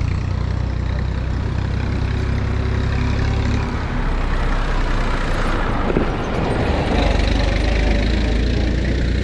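A motor vehicle's engine running steadily with a low hum, with road noise that swells about halfway through.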